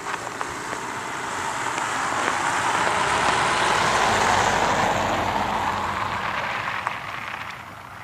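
A car driving past, its tyre and engine noise growing to a peak about four seconds in and then fading away.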